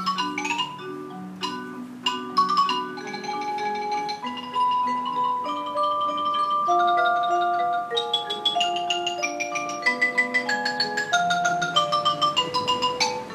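Percussion ensemble playing music on marimba and other mallet instruments: struck chords, then longer ringing notes, and in the second half a line of quick high notes stepping down in pitch.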